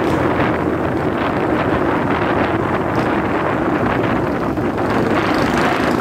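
Motorcycle riding along a road: steady engine hum mixed with wind buffeting the microphone.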